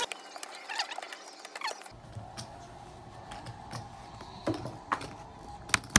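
Poker chips and playing cards being handled on a felt table: scattered light clicks and clacks, a few sharper ones near the end.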